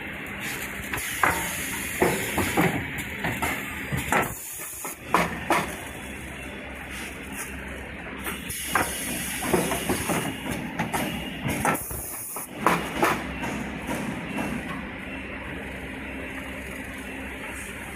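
XY GU 27 napkin tissue bag packing machine running, a steady mechanical hum broken by irregular sharp clacks from its moving parts.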